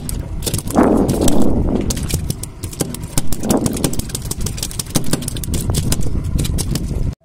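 Fishing boat's engine running steadily with a heavy low rumble and irregular clattering, with two louder rushes of noise, one about a second in and a shorter one about three and a half seconds in.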